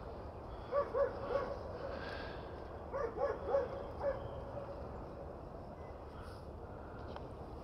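A dog barking in two quick runs: three barks about a second in, then four more around three to four seconds in.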